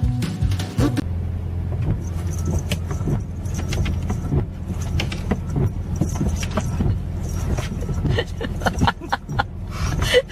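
Steady low drone of a running engine, with scattered light clicks and jangles over it that grow busier near the end.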